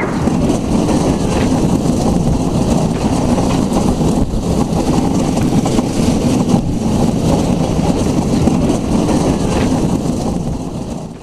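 Avalanche bobsled coaster's cars running down the steel trough at speed: a steady loud rumbling and rushing that drops away just at the end.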